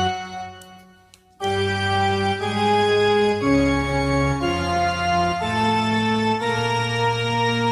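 Background music of slow, held organ-style chords. It fades out near the start, is silent for about a second, then comes back with a new chord about once a second.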